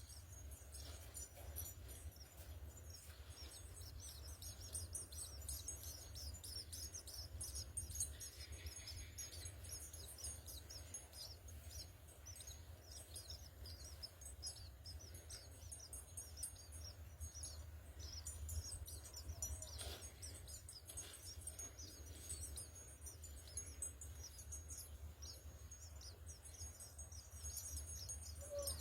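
House sparrows chirping: a steady stream of many short, quick chirps, over a steady low hum.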